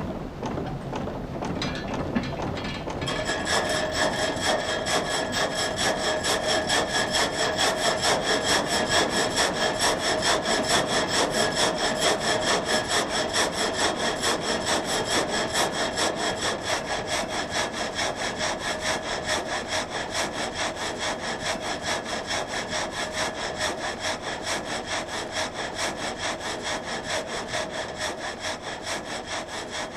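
Water-wheel-driven vertical frame saw cutting timber, the blade working up and down in a fast, even rhythm of strokes with a steady ringing whine over it. It starts about three seconds in, after a rushing noise.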